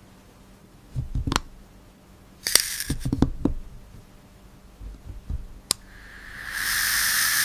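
Clicks and knocks from handling an electric salt and pepper grinder, then about six seconds in a steady grinding hiss as the grinder runs for a little under two seconds.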